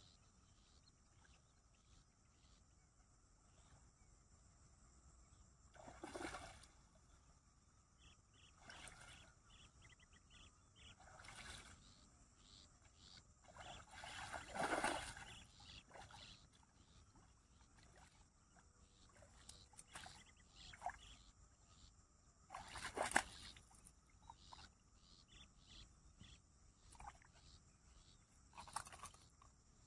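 A hooked snakehead thrashing and splashing at the water's surface as it is played on a rod and brought to hand, in half a dozen separate splashes, the biggest about halfway through. A steady chirping of insects underneath.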